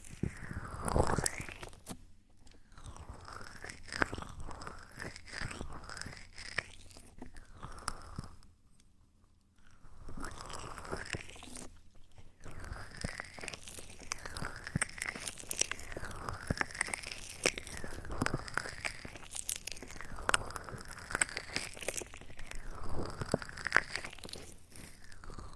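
Close-up ASMR trigger sounds at the microphone: soft crunchy rubbing strokes repeating about every second, with a short pause near the middle.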